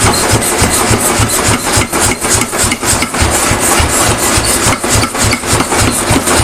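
Steady, rhythmic hammer blows, about three a second, drawing out a Damascus steel billet, over a continuous mechanical running noise.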